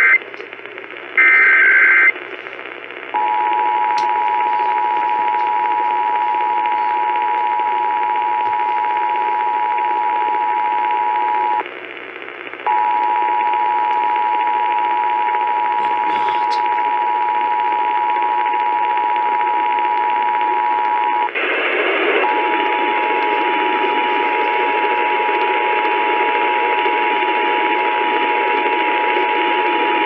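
Emergency Alert System tones played through a Kaito Voyager Pro radio's speaker. First comes the end of the SAME header, short buzzy data bursts. Then the steady two-note EAS attention signal sounds in three long stretches of about eight seconds each, separated by brief gaps, over radio reception hiss that gets louder about two-thirds of the way through.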